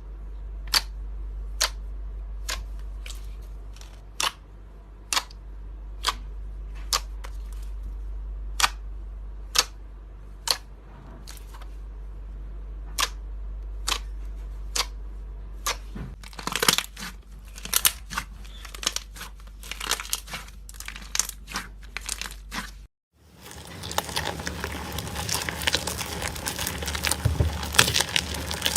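Foam-ball slime being pressed and worked by hand, the foam beads popping in single sharp clicks at first. Partway through the popping turns to dense, continuous crackling.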